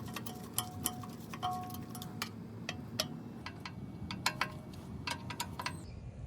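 Irregular light clicks and small metallic clinks, a few ringing briefly, from metal parts and hand tools being handled, over a faint steady hum.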